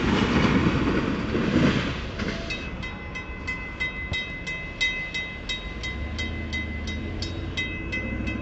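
Freight train's last container cars rushing past over the rails, fading out about two seconds in. Then the grade-crossing warning bell rings steadily, about three strikes a second, as the crossing gates go up after the train has cleared.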